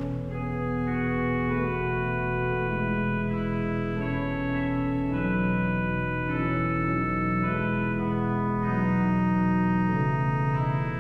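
Organ playing slow, sustained chords over a held bass note, with the chords changing every second or two.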